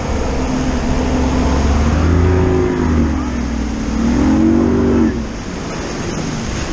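Bass boat's outboard motor running at speed through a hard turn, with rushing wind. The engine note rises and falls, and the motor eases off about five seconds in.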